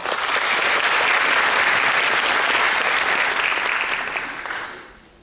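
Audience applauding, starting abruptly and dying away after about four to five seconds.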